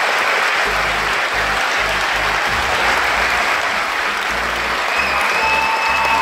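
Audience clapping steadily, with music and a beating bass line playing underneath.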